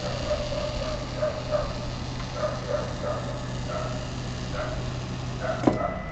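A dog barking in quick, repeated short yaps over a steady low hum. A sharp click near the end is the loudest sound.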